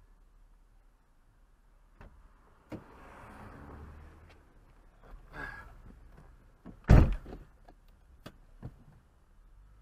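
Car door unlatched with a click, then rustling as someone climbs into the seat, heard from inside the cabin. About seven seconds in the door is slammed shut with a heavy thud, the loudest sound here, followed by two small clicks.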